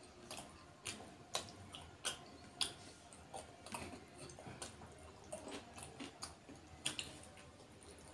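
Eating by hand: faint, irregular wet clicks and smacks from chewing and from fingers working rice and rohu fish curry on the plate, with a few sharper clicks standing out.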